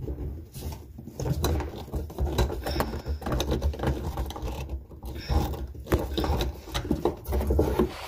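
A hand screwdriver driving a screw through a white plastic drawer-slide rear bracket into the back of a cabinet, with a run of irregular clicks as the screw turns.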